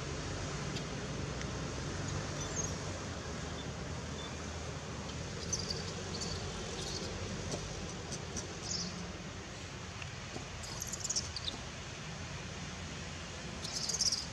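Outdoor ambience: a steady background hum and hiss, with scattered short, high-pitched chirps now and then, clustering in the middle and again near the end.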